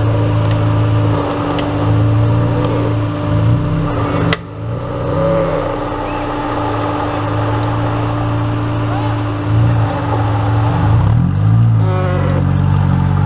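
Off-road 4x4 engine running under load, with its pitch rising and falling between revs near the end. The sound breaks off sharply about four seconds in, then resumes.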